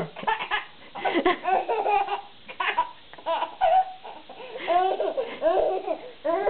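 A ten-month-old baby laughing in repeated short, high-pitched bursts.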